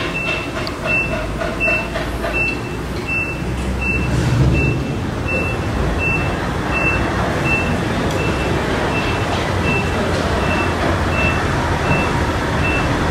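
A short, high electronic warning tone repeating about once every 0.7 s, growing fainter in the second half. Under it runs the low rumble of a JR West 105-series DC electric commuter train pulling away from the platform.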